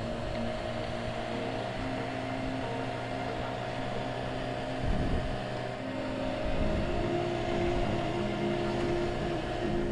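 Motorcycle engine running under way at a steady speed, with wind rush. There is a short thump about five seconds in, and the engine note dips a little past the middle, then climbs again.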